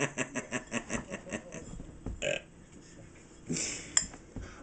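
A man's rhythmic laughter, a quick run of "ha" pulses that trails off over the first second or two, followed by a couple of short noises and a sharp click about four seconds in.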